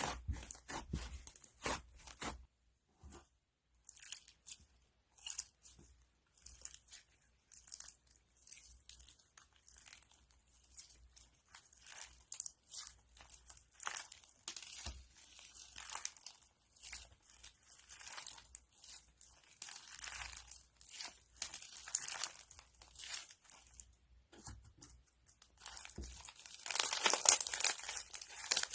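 Crunchy slime being worked by hand, giving a run of irregular crackles and pops. The crackling thickens into a dense, loud crunching near the end.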